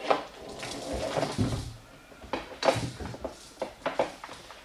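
Small knocks, clicks and rustling, scattered and uneven, from Siberian kittens clambering and scrabbling along a window sill, with one duller thump about a second and a half in.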